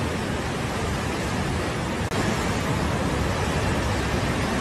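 Muddy floodwater rushing in a torrent, a steady dense noise with a brief dip about two seconds in.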